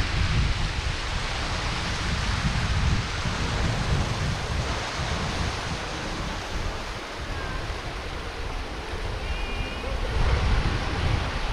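Waterfall rushing steadily, with wind buffeting the microphone in uneven low gusts.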